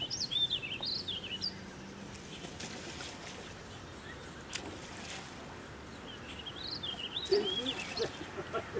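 Canada goose goslings peeping: high, wavering chirps in a quick run near the start, then a second run about six seconds in.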